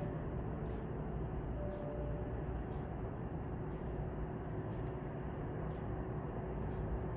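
Steady low rumble of aircraft and apron machinery heard through terminal window glass, with a faint high tick about once a second.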